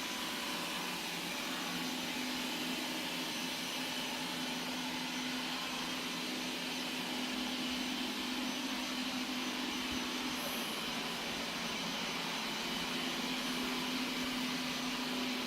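Qihoo 360 S6 robot vacuum running, a steady whir of its suction motor and brushes with a low hum that weakens briefly about ten seconds in.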